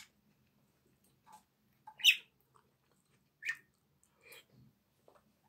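Metal fork clinking and scraping against a stainless-steel frying pan while scooping macaroni: a handful of short, sharp, high-pitched clicks and squeaks about a second apart, the loudest about two seconds in.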